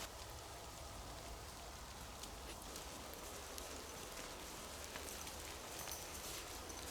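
Faint patter of water drops: meltwater dripping from trees in wet, thawing snow, with scattered soft ticks.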